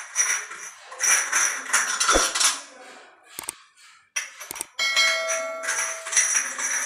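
Chrome wall-mixer cover flanges clinking and scraping against the metal fittings as they are handled and pushed onto the pipe stubs. One flange gives a ringing metallic ding about five seconds in that lasts a second or so.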